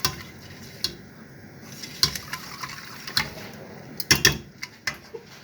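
A utensil stirring thick lemon curd in a saucepan: a soft wet churning with irregular clinks and knocks of the utensil against the pan, several close together about four seconds in.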